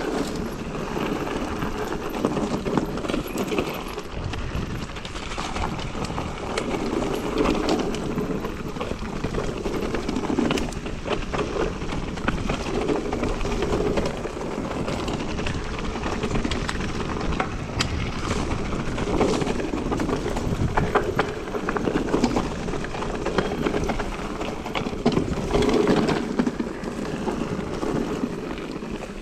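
Mountain bike being ridden over rough ground: a steady rumble of tyres on the trail, broken by frequent rattles and knocks from the bike.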